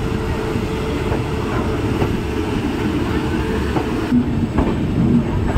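Passenger train running along the track, heard from aboard a coach: a steady rumble with a few clacks of the wheels over rail joints.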